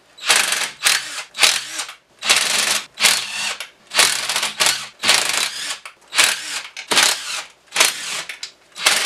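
Cordless impact driver hammering out the 1/2-inch flange bolts from a Dana 20 transfer case's bottom plate. It runs in a series of short bursts, roughly one a second, each a rapid rattle of impacts.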